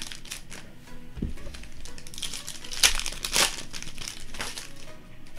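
Plastic wrappers of basketball trading card blaster boxes and packs crinkling and tearing as they are opened, in a run of irregular sharp rustles, loudest a little under three seconds in. A soft low thump about a second in.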